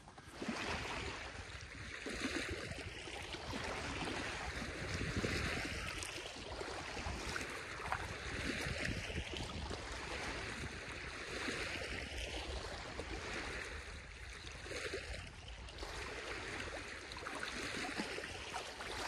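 Lake water lapping and sloshing around a person standing in the shallows, swelling and easing about every three seconds.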